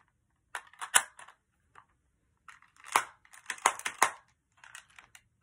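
Plastic clicks and clacks from a Power Rangers Dino Fury Morpher toy being handled and worked, a handful of sharp snaps spaced irregularly, with a quicker run of clicks a little past the middle.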